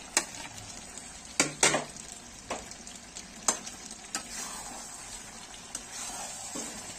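Chicken and potato curry sizzling in oil in a metal kadai as it is fried down and stirred with a metal spatula. The spatula clacks against the pan about seven times, loudest twice in quick succession about a second and a half in.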